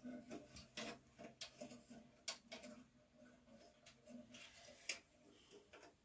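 Faint scattered clicks and light rattling of thin wires and small metal parts being handled inside a steel computer case, with a few sharper ticks, the sharpest about five seconds in.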